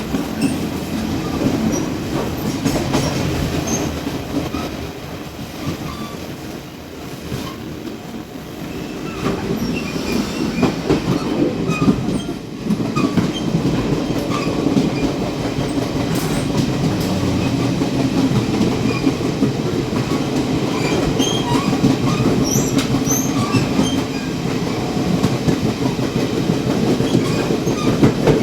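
Running noise at the gangway between a Chu-Kuang express passenger car and its baggage car: a steady rumble of wheels on rail, with the coupling and gangway plates rattling and clicking and scattered short squeaks. It eases off briefly about six seconds in, then picks up again.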